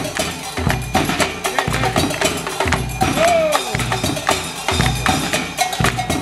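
The Cymbalobylette, a mechanical mobile music machine of drums, cymbals and percussion, playing: a fast clatter of wood-block and metal knocks over a deep drum beat about once a second. A short sliding tone rises and falls about three seconds in.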